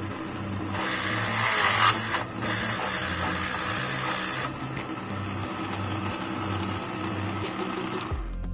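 Small electric drill running and cutting a hole through the mini lathe's aluminium housing, a steady whirring grind that stops shortly before the end, with background music underneath.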